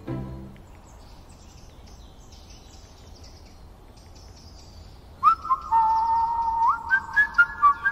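Whistling: a tune of held notes joined by quick upward slides, starting about five seconds in. Before it, only faint high chirps over a quiet background.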